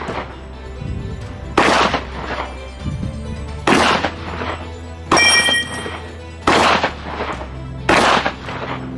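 Five loud 12-gauge shotgun shots, about one and a half to two seconds apart, over background music.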